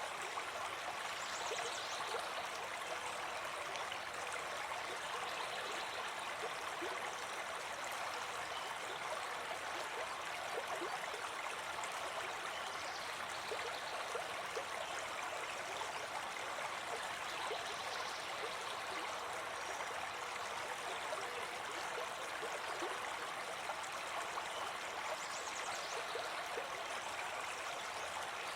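A small forest brook babbling and trickling steadily over stones.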